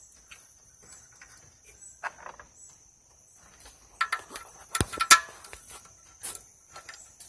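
A few sharp clicks and knocks as hands handle the metal water pump and belt drive on a small dredge engine, clustered about four to five seconds in. A steady high insect drone runs underneath.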